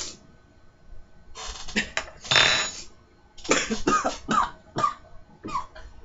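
A man coughing in a run of harsh, breathy bursts, set off by snorting black pepper. A couple of noisy bursts come about a second and a half in, the loudest a second later, then about six quicker coughs follow.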